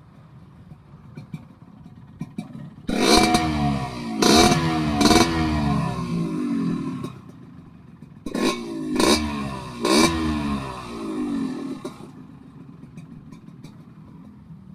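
Yamaha RX King two-stroke single revved in two bursts through an aftermarket underslung exhaust, each burst a few quick throttle blips with the pitch sweeping up and down. The odd note from the exhaust is, as the owner thinks, likely down to a wrongly set header pipe.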